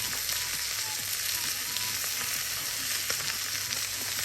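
Wood campfire burning in a fire pit: a steady hiss with a few sharp crackles, one about three seconds in.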